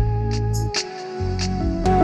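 Instrumental music track: deep bass notes under held melody notes, with a light high tick about three times a second.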